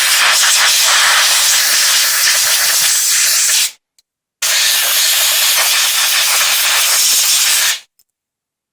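Compressed-air blow gun blowing dust out of a car heater blower motor, in two long, steady hissing blasts with a short break about four seconds in.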